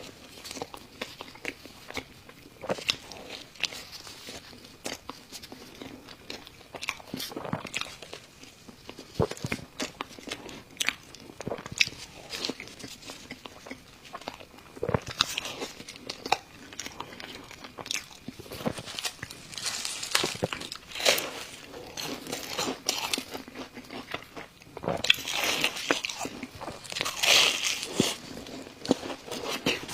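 Close-miked mouth sounds of a person biting and chewing a cheeseburger: irregular clicks and smacks throughout, growing denser near the end.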